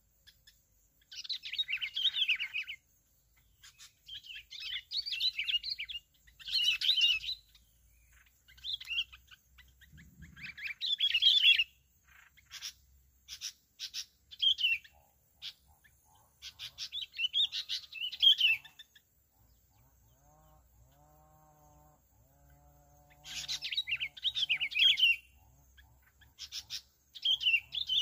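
Bulbuls singing in short, bright, chattering phrases every second or two, a wild bird and a caged decoy answering each other in a territorial contest. In a lull of about four seconds in the later part only a faint low hum is heard.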